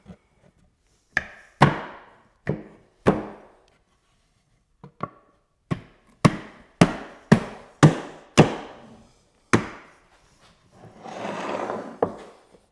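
About a dozen sharp wood-on-wood knocks, unevenly spaced in two runs, as the glued checkerboard frame's joints are knocked together. Near the end there is a softer scraping rub of about a second as the frame is moved on the workbench.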